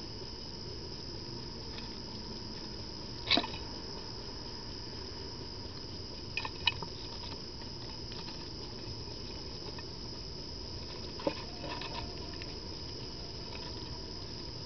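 Rats feeding at a dish make a few sharp clicks and knocks as they move about and gnaw, the loudest about three seconds in. A steady high hiss runs underneath.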